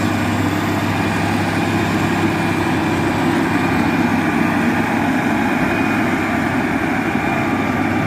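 FG85 motor grader's diesel engine running steadily as the machine works, scraping the ground.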